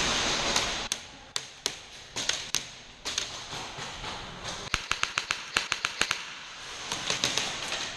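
Airsoft guns firing: a rushing hiss cuts off about a second in, then single sharp shots about half a second apart, a quick string of about ten shots in the middle, and a few more near the end.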